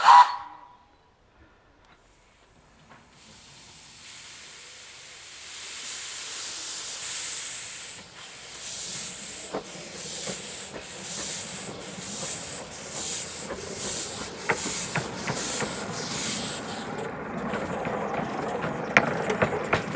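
Narrow-gauge steam locomotive approaching and working steadily, its exhaust hissing and chuffing evenly a little under twice a second and growing louder as it nears, then rail clatter and clicks as it runs close by. A short, loud whistle blast sounds at the very start.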